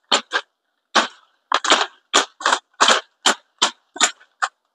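Hooked pruning knife chopping weak side branches off a coffee tree: a quick run of about a dozen sharp chops, two to three a second.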